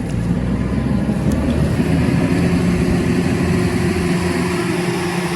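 An engine running steadily at an even pitch, loud and close.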